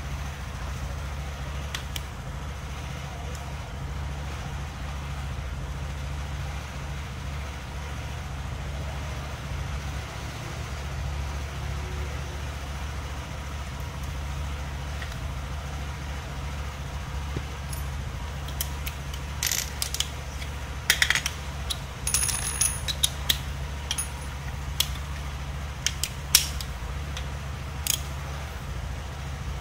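Metal tools and small engine parts clinking and clicking in a scatter of sharp knocks through the second half, over a steady low hum.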